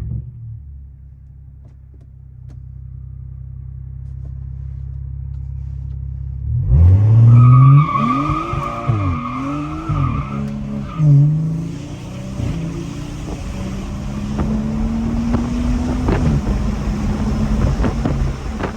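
Tuned BMW B58 turbocharged inline-six with a catless downpipe, droning steadily at light load. About six and a half seconds in it opens up hard and loudly, the revs sweeping up and down through quick gear changes. It then settles into a steadier pull, revs climbing slowly and dropping again near the end.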